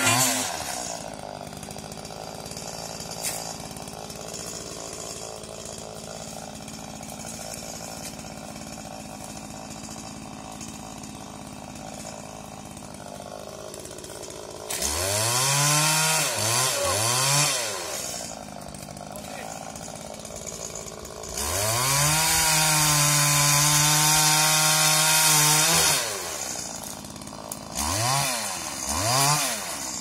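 Petrol pole saw's two-stroke engine idling, revved in short bursts about fifteen seconds in and again near the end, and held at full revs for about four seconds a little past twenty seconds in as the chain cuts overhead hazel stems.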